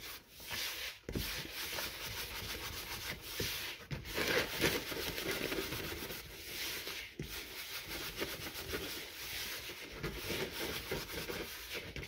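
Hands rubbing and kneading dry, crumbly bath bomb mix against the sides of a plastic bowl: a continuous gritty scratching with a few brief pauses, as blue mica colourant is worked through the powder.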